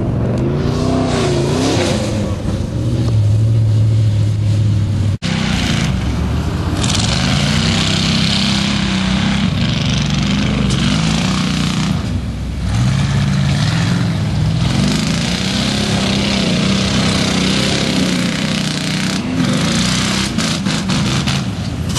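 Lifted square-body Chevy 4x4 engine revving hard while the truck churns through deep mud and water, its pitch rising and falling over and over with the throttle, over the hiss of spraying mud. About five seconds in the sound cuts abruptly; before that the engine runs at a steadier pitch.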